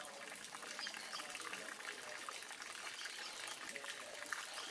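Faint, steady splashing and trickling of pond water, with many small scattered ticks.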